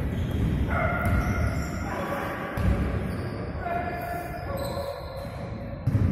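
Indoor basketball game: the ball bouncing and players' footsteps thumping on a wooden court, with voices calling out in the hall.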